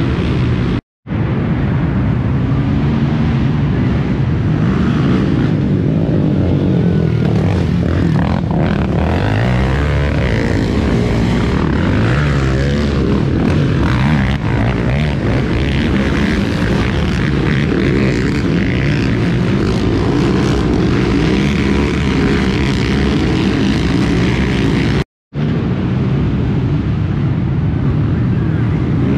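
Racing quad (ATV) engines running and revving, a steady drone whose pitch rises and falls as the throttle changes. The sound cuts out briefly about a second in and again near the end.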